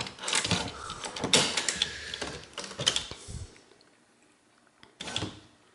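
HP Photosmart 3210 inkjet printer's head-cleaning mechanism running a cleaning cycle, with motor and gear noise and many clicks as the service station works the print heads. It stops about three and a half seconds in, and one short clack follows about five seconds in.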